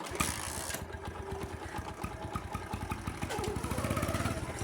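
Motorcycle engine starting up and idling, with a fast, even beat of firing pulses.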